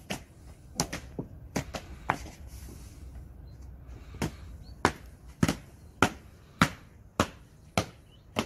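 Ceremonial guards' boots stamping on stone paving as they march: sharp single steps, scattered at first, then an even beat of a little under two steps a second from about four seconds in.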